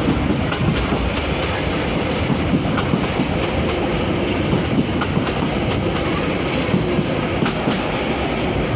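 Steam-hauled train running along the line, heard from on board: a steady rumble of the coaches, with wheels clicking over rail joints now and then.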